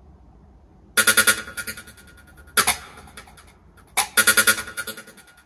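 Royalty-free electronic track played through a Klipsch center-channel speaker as a bass test, starting about a second in: clusters of sharp, rapid drum hits broken by short pauses.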